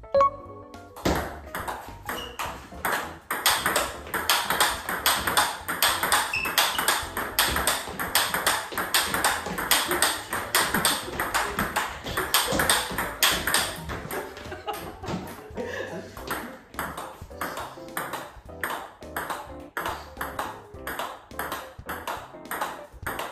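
Table tennis rally: a celluloid ball clicking off bats faced with Tibhar Hybrid MK FX rubber and bouncing on the table in a quick, even rhythm, over background music.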